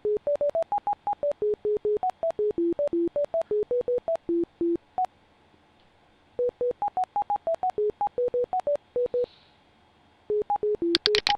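Bioresonance NLS computer software playing a rapid string of short electronic beeps at shifting pitches, about five a second, pausing twice, as the program runs its metatherapy pass. A few sharp clicks sound near the end.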